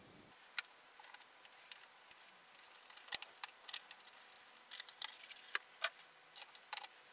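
Small metallic clicks and taps, irregular and scattered, as steel bolts are handled from a cardboard holder and started by hand into the sump pan of an engine short block.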